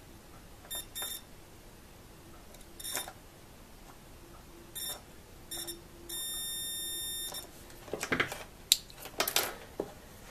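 Multimeter continuity beeper giving several short high beeps, then one steady beep about a second long as the test probes make contact across a small switch's terminals, showing the switch conducts. Clicks and rattles of the probes and switch follow near the end.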